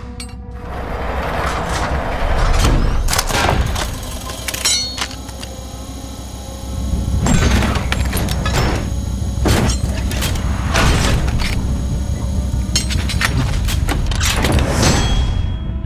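Sound effects for an animated engine: a series of heavy metallic hits and booms, about a dozen, over a continuous low rumble that gets louder about seven seconds in.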